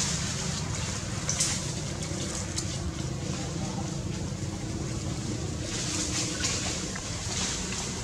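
Fast-flowing muddy river water rushing steadily, with a few brief splashes from a macaque dipping into and swimming in the current.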